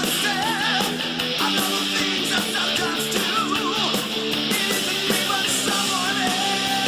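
Rock music with guitar: a wavering melody line over steady held chords.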